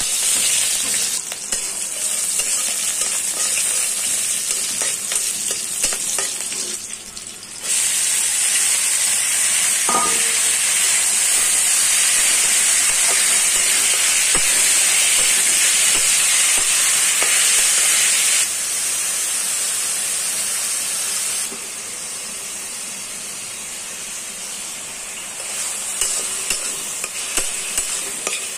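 Shredded vegetables and green chillies sizzling in hot oil in a wok, stirred with a metal spatula. The sizzle jumps louder about eight seconds in, stays strong for about ten seconds, then settles to a softer sizzle, with a few spatula clicks against the pan near the end.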